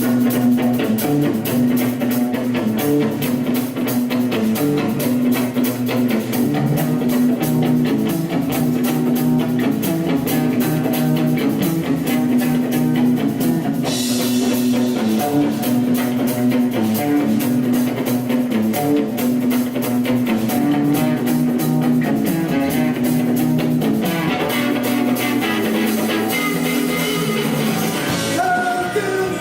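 Rock band playing live: an instrumental passage of guitar and drum kit over a steady beat. The sound fills out and brightens about halfway through, and again near the end.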